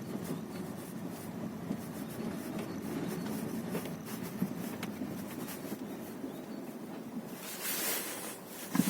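Volkswagen Passat CC's 2.0 TSI engine running steadily, with faint scattered clicks. About seven and a half seconds in, a hissing rush swells for under a second, then a sharp knock comes near the end.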